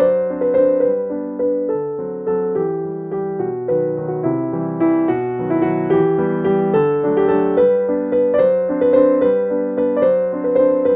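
Background piano music: a melody of struck notes in a steady rhythm, each note fading after it is played.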